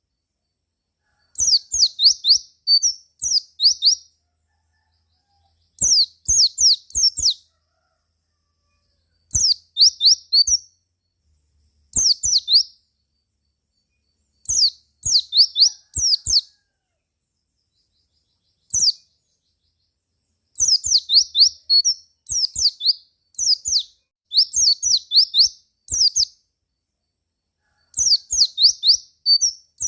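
White-eye (pleci) calling in repeated phrases of rapid, high, downward-sweeping chirps, each phrase a second or two long, broken by short silent gaps. It is a lure call meant to stir other white-eyes into singing.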